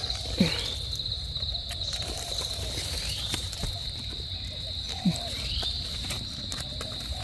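Crickets trilling steadily at a high pitch in a constant, finely pulsing chorus, with a few faint clicks and rustles of leaf litter.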